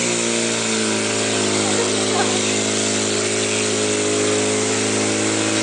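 Portable fire pump's engine running steadily at one unchanging pitch while it pumps water out through the attack hoses to the nozzles.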